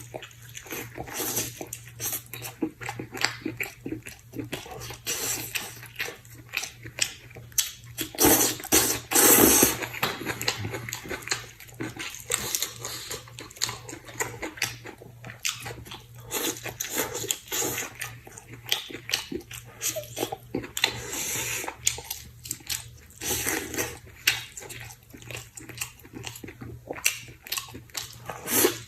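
Close-up eating sounds: a person chewing and biting stewed chicken, with many irregular wet mouth clicks. A louder stretch of biting comes about eight to ten seconds in.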